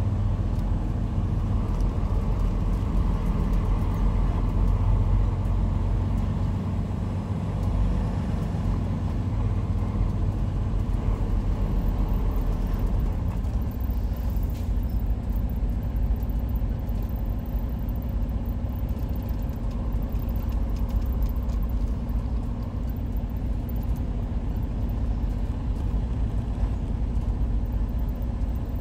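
Semi truck's diesel engine running at low speed, a steady low rumble heard from inside the cab.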